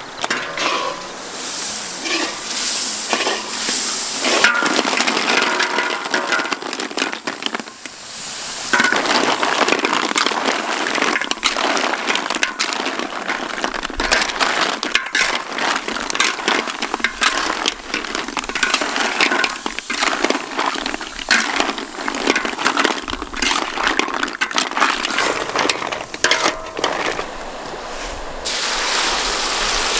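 Large snails stir-fried in their shells in a metal wok: the shells clatter, click and scrape against the pan and each other as a spatula turns them, in a dense run of irregular clicks. Near the end a steady rush of running water takes over.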